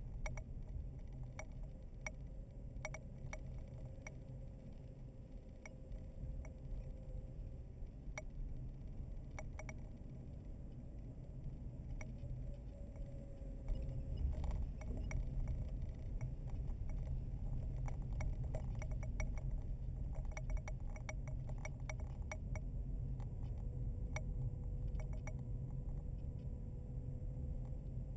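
Road noise inside a moving car: a steady low rumble of tyres and engine, with frequent small clicks and rattles in the cabin. The rumble gets louder about halfway through, while the car passes through a roofed rockfall shelter.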